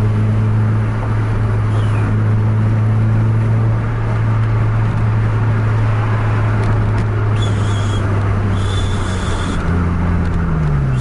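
Car cruising at highway speed, heard from inside the cabin: a steady engine drone over tyre and road noise. Near the end a second engine tone slides down and back up.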